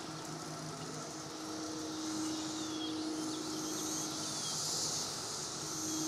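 Cicadas singing in chorus: a continuous high, hissing buzz that swells and fades, loudest a little after the middle. A few short, faint chirps come near the middle, and a low steady hum runs underneath.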